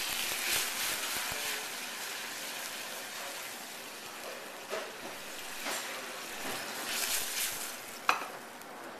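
Vegetable stock sizzling as it hits the hot bacon fat and browned lardons in a stainless steel sauté pan. The sizzle is loudest at first and slowly dies down, with a few faint clicks later on.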